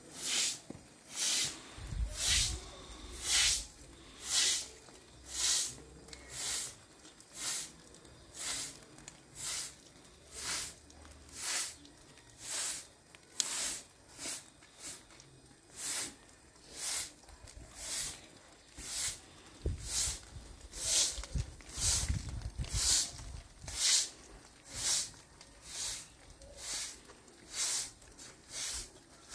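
Short-handled straw broom sweeping wet concrete: a swish with each stroke, about one stroke a second.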